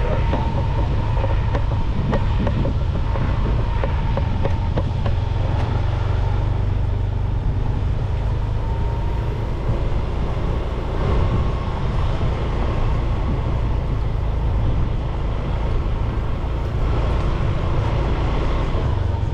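Motorbike being ridden, its engine running under steady wind rumble on the microphone.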